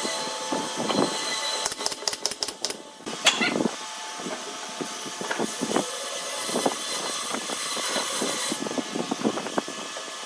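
Wooden boards being handled and set in place on a workbench: a run of short knocks and clunks of wood on wood, busiest in the first few seconds, over a steady background hiss.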